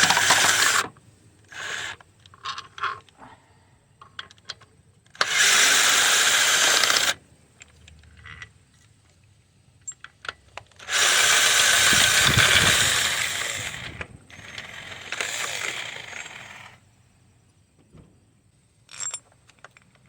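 Cordless impact wrench running in bursts of a couple of seconds, four times, loosening the 14mm bolts of the engine's motor mount bracket, with light metallic clinks of bolts and socket between the bursts.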